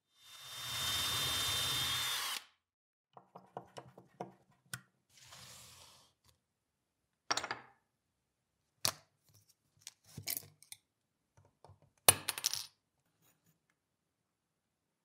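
A steady rushing hiss for about two seconds, then scattered light clicks and taps and several sharper knocks, the sharpest about twelve seconds in, as small metal tins of model enamel paint and a brush case are handled.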